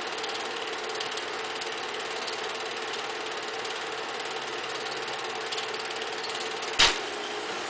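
A small motor running steadily, with a faint even hum through it. A single sharp click comes near the end.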